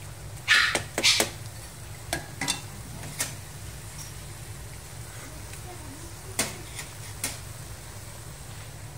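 Wooden spatula stirring cooked basmati rice in a frying pan, with several sharp scrapes and taps against the pan over a low steady hum. The rice is being stirred to drive off excess cooking water.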